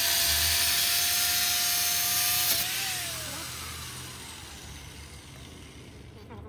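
Angle grinder's cutting disc slicing through a sheet-metal strip: a steady high whine over a harsh hiss. About two and a half seconds in, the grinder is switched off and the whine falls away as the disc spins down.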